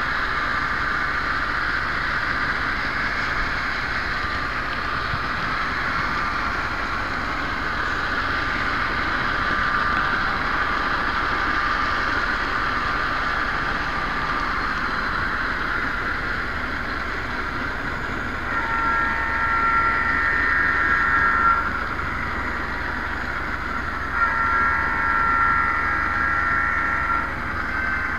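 Model train running along its track, a steady whirring hiss, with two multi-note horn blasts of about three seconds each in the last third, sounded as it nears a grade crossing.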